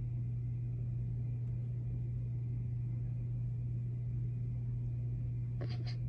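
A steady low hum with a faint high whine over it, and two brief scratchy sounds just before the end.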